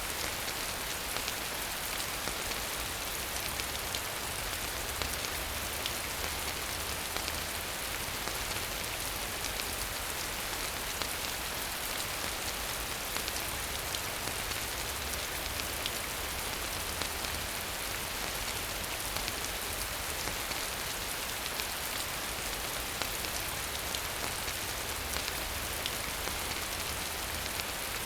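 Steady rain falling, an even hiss with scattered individual drop hits standing out.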